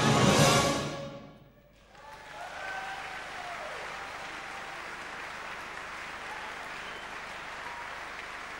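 A fanfare orchestra's brass and saxophones hold a final loud chord that dies away about a second in. After a short hush, a concert audience applauds steadily.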